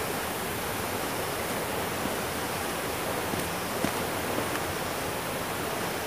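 Steady rushing of a nearby waterfall, heard as an even hiss, with a light footstep tap on the stone steps about four seconds in.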